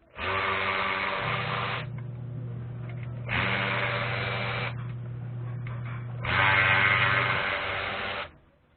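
Total impact wrench triggered three times, its motor running for about one and a half to two seconds each time, with a steady low hum carrying on between the bursts.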